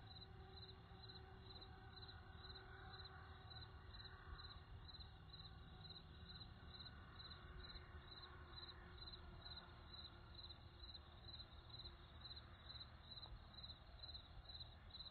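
Near silence with faint cricket chirping, repeating about twice a second.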